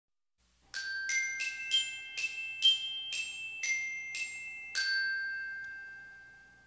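Short chiming intro jingle on a mallet-percussion instrument: about ten quick struck notes, the last one left ringing and slowly fading away.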